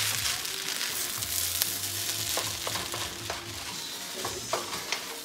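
Quinoa fried rice sizzling in a hot wok as a wooden spatula stirs and scrapes it, with a few sharp taps of the spatula against the pan.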